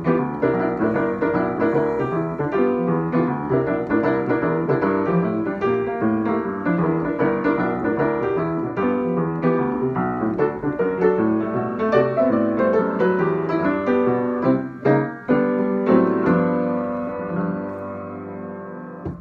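Upright piano playing fast boogie-woogie. About three seconds before the end it closes on a final chord that rings and fades away.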